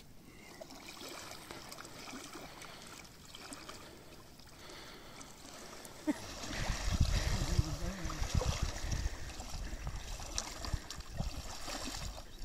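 Shallow lake water splashing and sloshing as a hooked fish thrashes at the surface and a man wades toward it. A louder low rumble comes in about halfway through.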